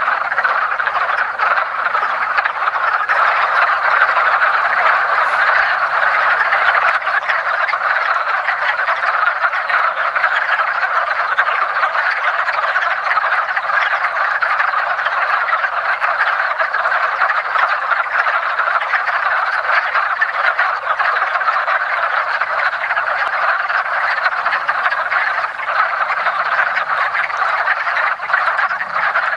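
Breeding chorus of many wood frogs calling at once, their duck-like clucking calls merging into one steady, unbroken wall of sound.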